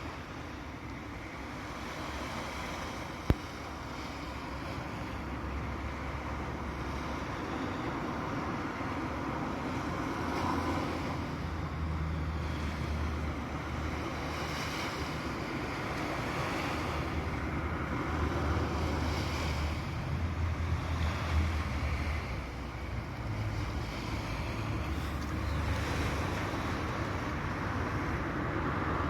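Sea waves breaking and washing in, swelling and easing every few seconds, with wind rumbling on the microphone. A single sharp click about three seconds in.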